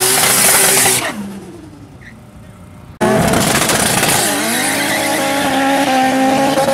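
A loud rushing hiss that dies away over about two seconds. Then two drag-racing street cars, one a Nissan Cefiro A31 with all-wheel drive, rev hard at the start line and launch, their engines climbing steadily in pitch as they accelerate down the strip.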